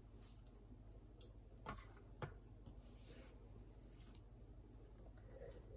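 A few faint clicks and taps of a stainless steel bench scraper on a granite countertop as sticky dough is cut and handled, over a low steady hum.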